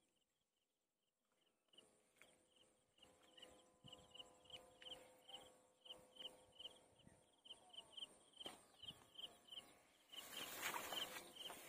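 Faint, high chirping repeated about three times a second. A louder rustling noise starts near the end.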